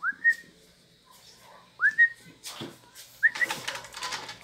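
A person whistling to call a dog: three short rising whistles, each sliding up and holding briefly on a high note, about a second and a half apart. Short bursts of noise follow the second and third whistles.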